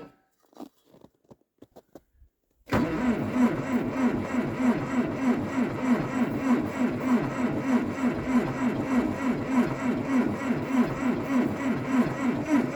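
A few faint clicks, then about three seconds in the diesel engine of a TD8E bulldozer starts being cranked over by its starter in −25 °C cold: a sudden, fast, even, rhythmic churning that keeps going.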